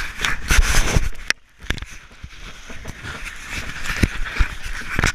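Wind and water rushing past a racing catamaran's deck camera, with rubbing and thumps as something brushes over the camera in the first second, then a few sharp knocks on the deck and netting.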